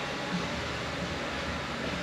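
Steady workshop background noise: an even hiss over a low hum, with one faint light knock about a third of a second in.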